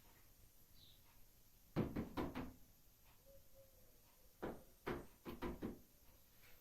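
Two quick runs of knocks or thumps: three or four strokes about two seconds in, then five more about four and a half seconds in.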